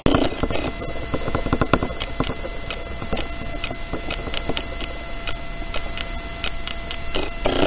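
Wooden whirligig mechanism running, its moving parts making quick, irregular clicking and rattling over a steady hum.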